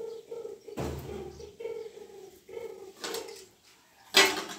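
Pigeons or doves cooing, a repeated low pulsing call. A sharp thump comes about a second in, and a loud clatter comes near the end.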